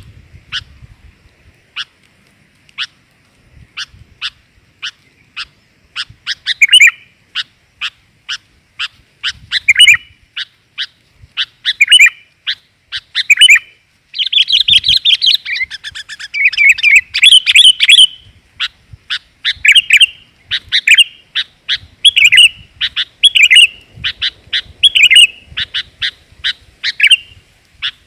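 Sooty-headed bulbul (kutilang) calls, the female's voice used as a lure for males: a string of short, sharp chirps about one to two a second, with a run of dense chattering about midway.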